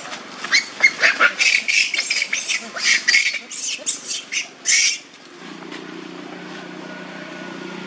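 Macaques screaming during a scuffle, a young monkey being grabbed and pinned by an adult: a rapid run of loud, shrill shrieks that stops abruptly about five seconds in. A steady low hum follows.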